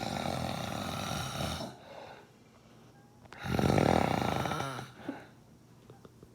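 A sleeping man snoring: two long snores about three and a half seconds apart, the second one louder.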